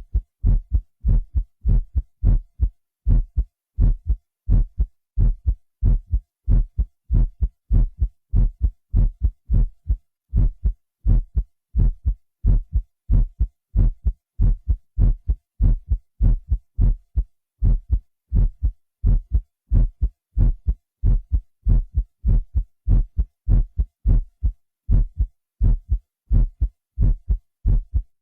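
Recorded human heartbeat, digitally enhanced on a Synclavier: a steady, even rhythm of low, deep thuds.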